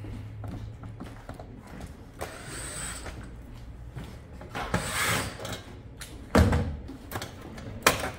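Cordless drill-driver running in short runs on the screws of a Samsung 360 ceiling cassette air conditioner, among clicks and clatter of its plastic and metal parts being handled, with a loud knock about six and a half seconds in.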